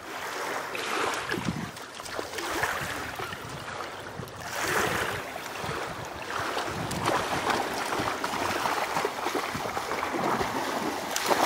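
Water splashing and sloshing as Dobermanns swim and wade through shallow water, rising and falling in waves, with a louder splash near the end.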